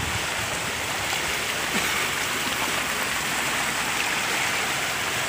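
Steady rushing hiss of heavy rain and running floodwater, even throughout with no distinct events.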